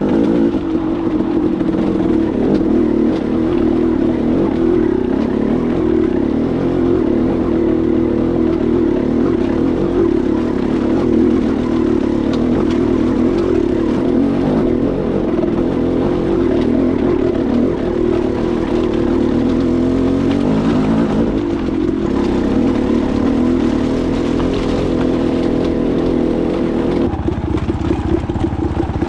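Dirt bike engine running steadily while being ridden, with a change in the engine note near the end.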